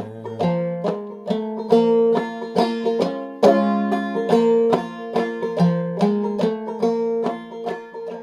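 Five-string banjo played clawhammer style in sawmill tuning, capoed at the third fret: an instrumental break of a slow 3/4 folk tune in F#, with a steady run of plucked notes and drone-string strikes.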